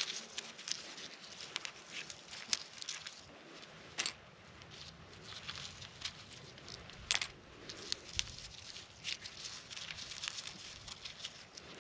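Gloved hand picking bits of debris off dry, stony ground and dropping them into a plastic trash bag: scattered rustling and crackling with sharp small clicks, the loudest about 4 s and 7 s in.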